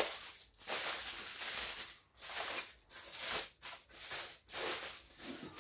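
Aluminium foil being crumpled and folded by hand, crinkling in irregular bursts.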